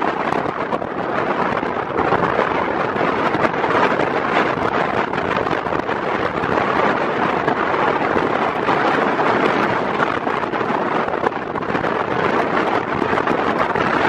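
Storm-force wind buffeting the microphone in a loud, unbroken rush, mixed with the noise of heavy surf breaking on the beach.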